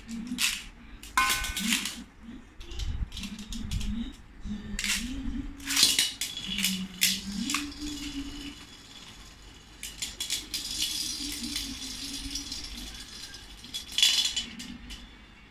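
Beyblade spinning tops launched into an aluminium wok, rattling and clinking against the metal bowl and knocking into each other, with many sharp clicks scattered throughout. A low hum that steps in pitch runs under much of it.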